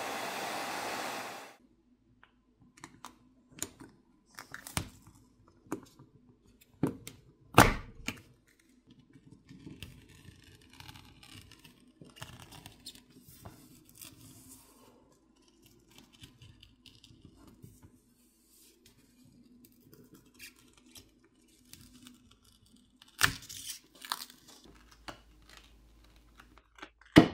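A hairdryer blows for about a second and a half, then cuts off. A plastic pry pick is then worked around the Google Pixel 9a's glued plastic back plate, giving scattered sharp clicks and snaps with faint crackling as the adhesive is pried loose. The loudest snaps come about eight seconds in and near the end.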